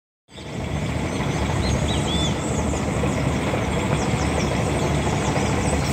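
Outboard motor of an open fishing boat running slowly, a steady low rumble that cuts in just after the start, with birds chirping over it.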